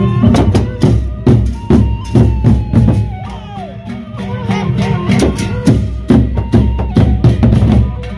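Gendang beleq ensemble playing: the large double-headed Sasak barrel drums are beaten with sticks in dense, driving strokes about three a second. A held melodic line bends in pitch above them.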